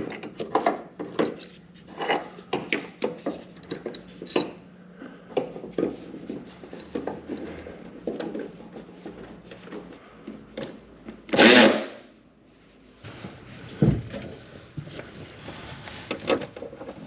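Hand tools and metal hinge parts clinking, knocking and rubbing as a third-gen Firebird door hinge is fitted back on the car. A louder noisy burst lasting about half a second comes past the middle, followed by a low thump.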